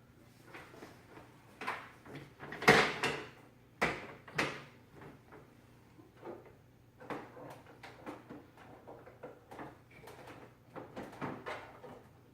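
Irregular knocks, clicks and scraping from handling and adjusting the parts of a folding laptop desk as its workspace tilt is set, with a few louder clunks about three to four and a half seconds in.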